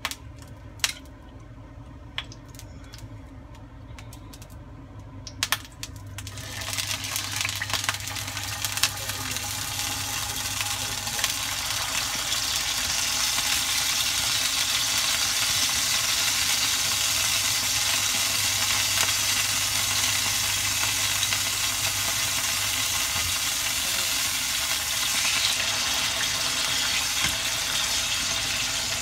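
A few light clicks, then about six seconds in, marinated pork steaks start sizzling in hot oil in a nonstick frying pan. The sizzle swells over several seconds and then holds steady and loud.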